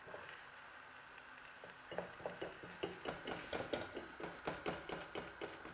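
Metal fork stirring eggs in a non-stick frying pan, scraping and tapping the pan. Faint at first, then from about two seconds in a quick run of light clicks, about four a second.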